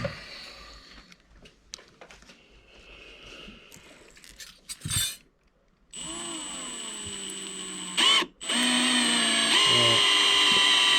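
Power drill working into a boat's fiberglass deck. After a few faint handling clicks, it starts about six seconds in with a steady whine, stops briefly near eight seconds, then runs on louder.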